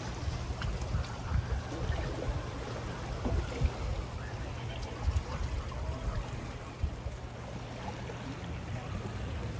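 Swollen river current rushing fast after heavy rain, a steady wash of flowing floodwater, with wind buffeting the microphone as a low, uneven rumble.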